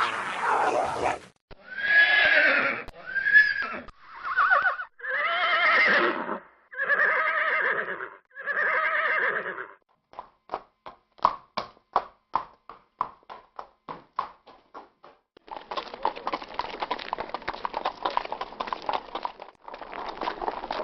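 A horse whinnying and nickering in a series of separate calls, then hooves clip-clopping on a hard surface in sharp, evenly paced steps, two to three a second. After that comes a denser, noisier run of hoofbeats.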